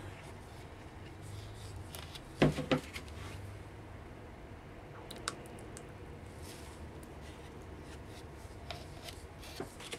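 Quiet handling of plastic soap-batter containers, with a brief knock about two and a half seconds in and a few faint clicks later. Pouring thick soap batter is itself almost silent.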